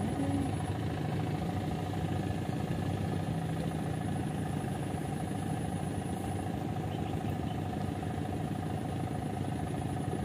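An engine running steadily at an even speed, a constant mechanical drone with a steady hum and whine.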